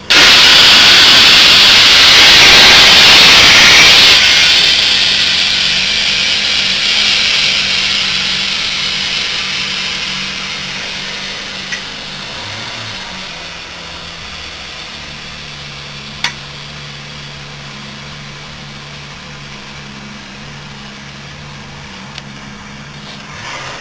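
Compressed air from a small tank charged to almost 1200 kPa rushing through a tyre inflator gun into an almost flat SUV inner tube. It is a loud hiss that starts suddenly, holds for about four seconds, then fades over the next ten seconds as the tank empties. A low steady hum is left underneath, with a single click about sixteen seconds in.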